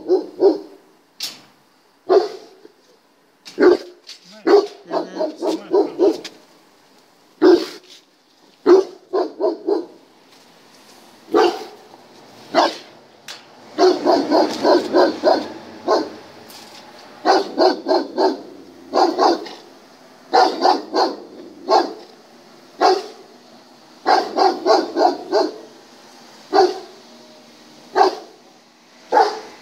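German shepherd barking at a decoy in bite gear, in repeated volleys of quick barks with short pauses between them; the longest unbroken run comes about halfway through.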